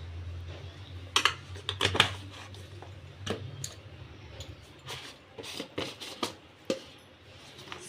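Irregular light clicks and taps of a spoon against a bowl as chilli powder is spooned onto chicken and curd.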